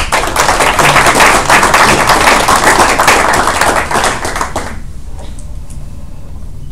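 A small audience applauding with a dense patter of hand claps, which stops about five seconds in.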